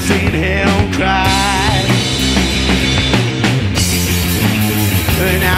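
Loud rock song from a band with electric guitar and drums, a wavering melody line running over it.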